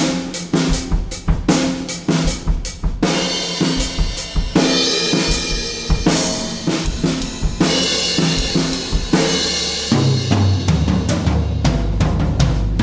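Full maple drum kit played with a hi-hat groove of bass drum, snare and hi-hat strokes. After about three seconds crash cymbals wash over the beat. Near the end a tom fill steps down in pitch to a low ringing floor tom.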